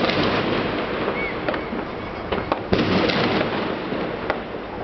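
Fireworks going off in a dense, continuous crackle, with several sharp bangs on top; the loudest bang comes a little under three seconds in.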